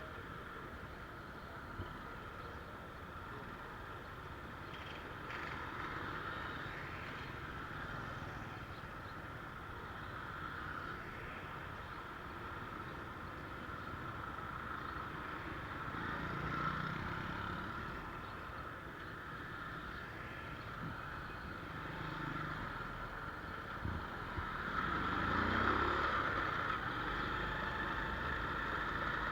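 A motor vehicle engine running over a steady outdoor background. It swells once about halfway through and more strongly near the end, where its pitch glides.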